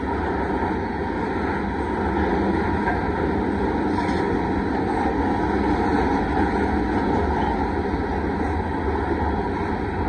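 Covered hopper cars of a freight train rolling past at close range: a steady noise of steel wheels running on the rails.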